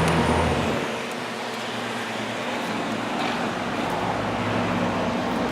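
Steady road traffic noise with a low engine hum that drops away about a second in.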